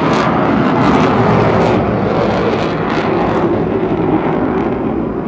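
Loud, rough jet noise from the Avro Vulcan's four Rolls-Royce Olympus turbojets as the delta-wing bomber passes overhead, easing slightly near the end.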